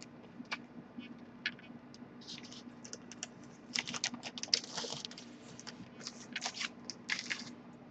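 Light clicks and rustling of a laserdisc jacket in a plastic sleeve being handled and turned over, in irregular bursts that get busier about halfway through and again near the end.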